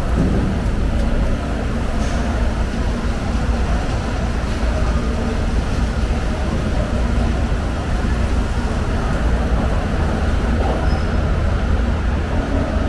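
Steady low rumble of fish-market background noise, with faint voices in it.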